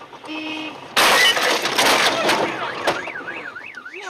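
A car horn honks briefly, then a sudden loud burst of noise lasts about two seconds. About three seconds in, a car alarm starts warbling up and down, two to three times a second.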